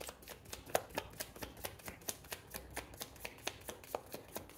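A deck of tarot cards being shuffled by hand: a quick, even run of card slaps and clicks, about four a second.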